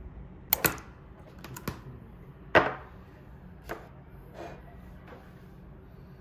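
Objects being handled and set down on a tabletop: a handful of sharp knocks and clicks, loudest about two and a half seconds in, then a few lighter taps.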